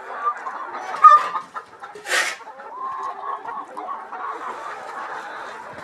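A flock of chickens clucking continuously, many birds calling over one another. A sharp click about a second in and a brief rustling hiss about two seconds in.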